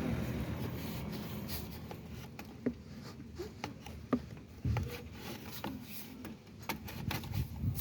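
Scattered light clicks and taps, several a second at times, over a low background noise that fades away in the first couple of seconds.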